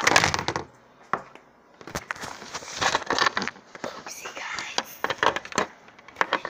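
Handling noise on a phone's microphone: a loud rub at the start, then bursts of crackling, knocking and scraping as hands and skin brush against it.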